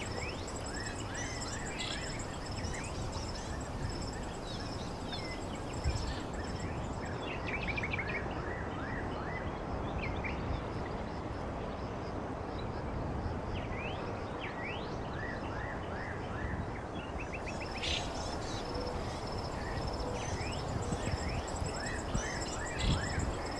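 Rural outdoor ambience: insects trilling steadily in a high pitch, birds chirping on and off, over a constant rushing noise.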